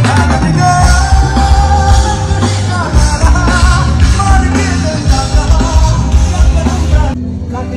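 Loud song with singing over a heavy bass beat; the treble drops away abruptly about seven seconds in.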